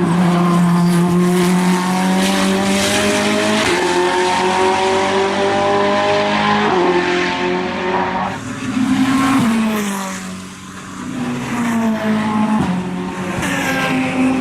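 Ferrari 488 GT3 EVO race car's twin-turbo V8 running hard on track, its pitch stepping with gear changes. It fades briefly about ten seconds in, then builds again.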